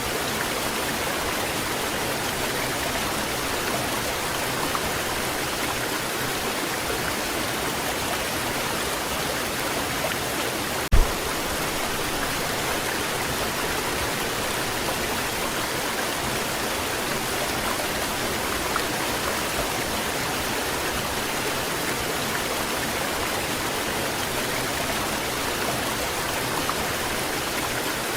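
Waterfall pouring steadily, an even rushing of falling water. Once, about a third of the way in, a brief low thump.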